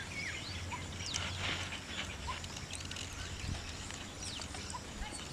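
Birds chirping and calling outdoors: many short, high, quickly falling chirps scattered throughout, over a steady background hiss.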